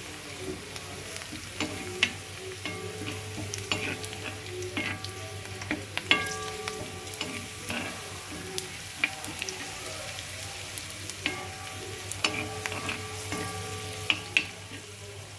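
Sliced onions and cumin seeds frying in hot oil in a wok, a steel ladle stirring them and knocking against the pan in sharp, briefly ringing taps. The onions are being fried toward golden brown for a dal tempering.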